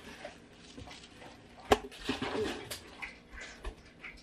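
Clothes being handled and unwrapped: velvet fabric and wrapping paper rustling, with a sharp click about a second and a half in and a short burst of rustle just after.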